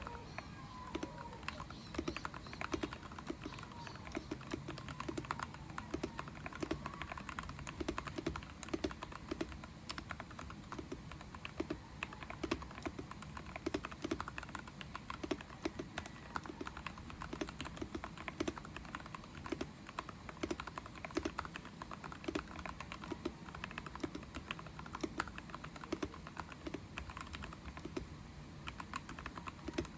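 Typing test on an Ikki68 Winterbreath mechanical keyboard with an aluminium plate and Lavender switches lubed with Krytox 205G0: steady keystrokes, a few a second, clicking and clacking without pause.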